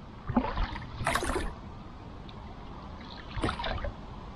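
Oars dipping and splashing as an inflatable boat is rowed: three strokes, a second or two apart, over a low steady rumble.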